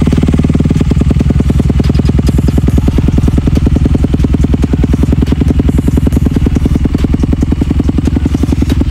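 Honda CRF250R's single-cylinder four-stroke engine idling steadily through a Pro Circuit T-6 dual exhaust, a fast, even beat with no revving.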